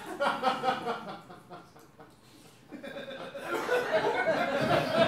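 Audience laughing: a short burst at the start, a brief lull, then laughter swelling and growing louder from a little past halfway.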